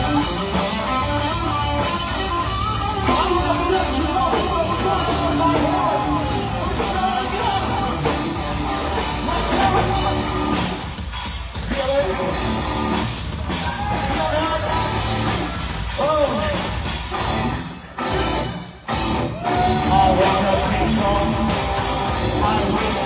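Live rock band playing loud, with sung and yelled vocals over electric guitar and drum kit. The music drops out briefly twice about three-quarters of the way through, then comes back in.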